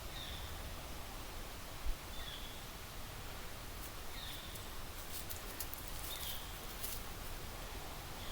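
A bird calling over and over, one short high call about every two seconds, over a low steady rumble, with a few faint clicks in the middle.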